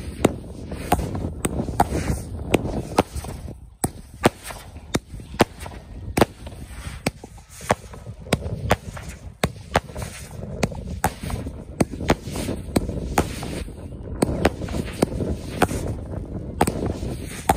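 Fireworks bursting in rapid, irregular succession: sharp bangs about two or three a second over a continuous low rumble.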